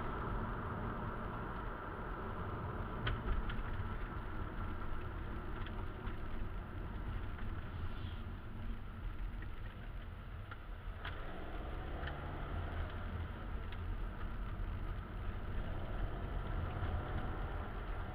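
Car engine and road noise heard from inside the cabin while driving, a steady low rumble, with a few sharp clicks and the engine note climbing briefly about two-thirds of the way through and again near the end.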